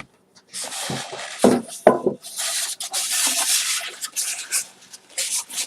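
Box packaging scraping and rustling as a tightly fitted microphone is pulled out of its insert, with a couple of knocks in the first two seconds.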